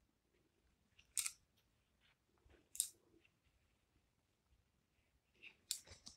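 Faint handling sounds of hand embroidery: red thread being pulled through cloth and the fabric shifting, with two short sharp ticks in the first three seconds and a cluster of rustles near the end.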